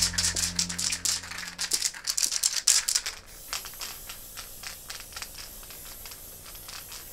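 Soundtrack music led by a percussion rattle: dense shaking strokes over a low held note that fades out about two seconds in, thinning after about three seconds to a sparser ticking rhythm of about four strokes a second.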